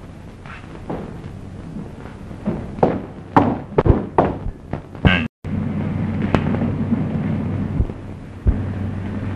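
Storm sound effects on an old film soundtrack: a run of sharp cracks and crashes, loudest in the middle. The sound cuts out for an instant about five seconds in, and a steady low hum with storm noise follows.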